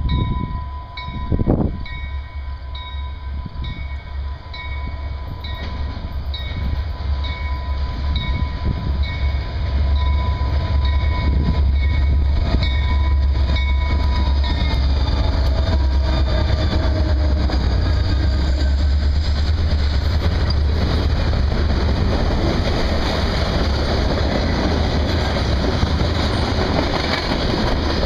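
Diesel-hauled freight train approaching and rolling past: the locomotives' engine rumble grows louder and peaks as they pass about ten seconds in, then gives way to the steady rumble and rattle of loaded coil cars and flatcars on the rails. A regular ringing tone sounds over the approach and fades once the locomotives are by.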